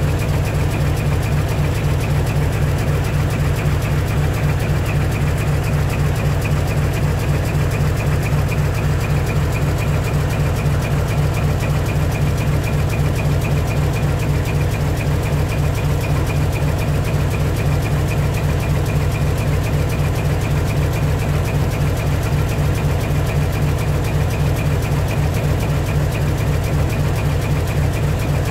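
Heavy truck diesel engine idling steadily through a split-manifold (mani-wari) exhaust, a loud, even low pulsing with no revving.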